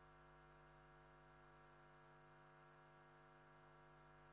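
Near silence, with a faint steady electrical hum made of many even tones.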